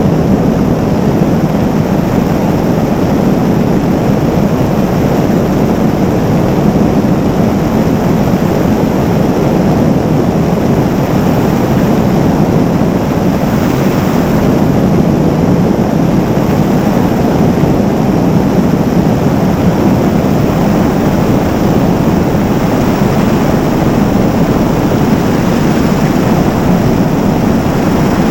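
Robinson R44 helicopter in cruise flight, heard from a camera mounted outside the cabin: steady rotor and engine noise mixed with rushing wind.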